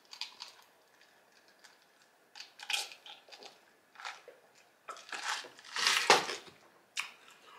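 A person drinking in gulps from a plastic cup close to the microphone, with small wet mouth clicks and swallows. Near the end comes a breathy exhale.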